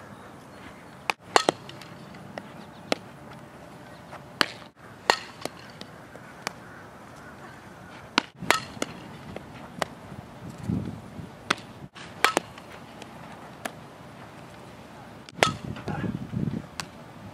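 A softball being hit, fielded and thrown: a dozen or so sharp pops and cracks of the ball off a bat and into leather gloves. Between them come short dropouts to silence where clips are spliced together.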